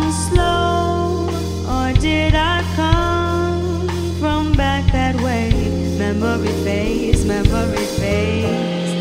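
A live neo-soul/electronic band: a woman's lead vocal sings held, sliding notes over keyboard, bass guitar and drum kit, with regular drum hits.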